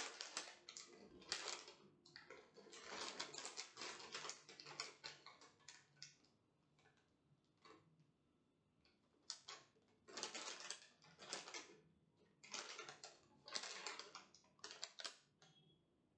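Crinkling plastic packaging: a metallised-film chips packet being lifted and handled, then, after a few quiet seconds, a plastic courier mailer bag rustling in a second spell of crackly bursts.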